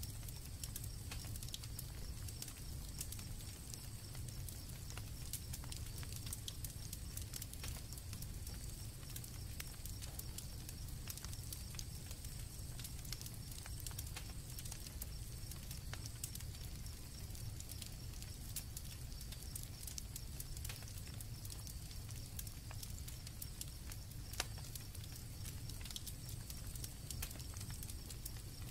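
Campfire crackling with irregular sharp pops over a low rumble, and crickets chirping steadily at night behind it. One pop about 24 seconds in is louder than the rest.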